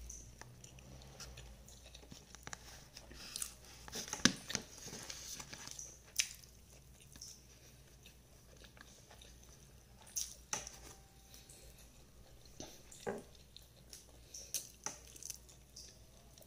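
A person chewing and biting fried eggplant and rice, close to the microphone, eating by hand. Short, sharp mouth smacks and clicks are scattered through the chewing, the strongest about 4, 6, 10 and 13 seconds in.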